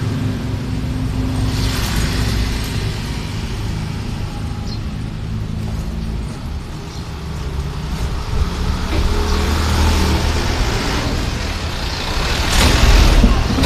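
Road traffic: motor vehicle engines running, with a vehicle passing close near the end, the loudest moment.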